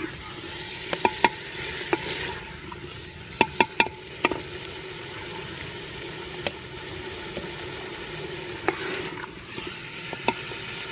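Potato and cauliflower pieces frying in oil in a clay pot, a steady sizzle. A spoon stirs them and knocks against the pot in sharp clicks, with a quick cluster of knocks about three and a half seconds in.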